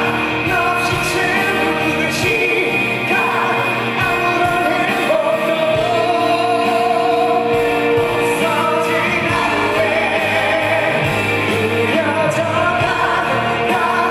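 Male singer performing a song live into a microphone, backed by a band with electric guitars and keyboards; his voice holds a long note for a few seconds in the middle.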